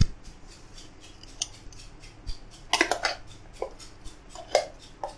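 Metal spoon scraping and knocking against a steel mixer-grinder jar as thick green paste is scraped out. A sharp clink right at the start, then scattered scrapes and taps, several in quick succession about three seconds in.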